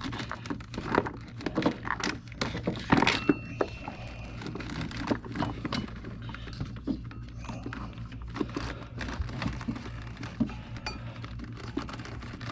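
Scattered clicks, taps and knocks of hands working a serpentine belt over the engine's pulleys and pulling it against its tension, busiest in the first few seconds, over a steady low hum.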